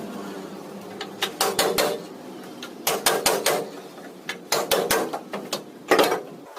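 Hammer blows on steel vehicle body panel, struck in quick runs of several blows with short pauses between, as in manual panel beating of crash-damaged bodywork.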